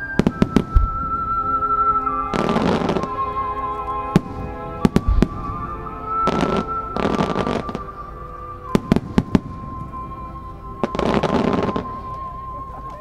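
Super starmine fireworks by Marugo: sharp reports of bursting shells, in clusters near the start and again about nine seconds in, with several short noisy rushes in between, over music with a long-held melody.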